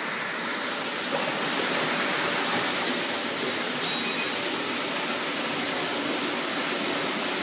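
Steady rushing hiss of a 5-gallon barrel water filling machine running, with water spraying inside its stainless-steel chamber. A brief high squeal comes about four seconds in.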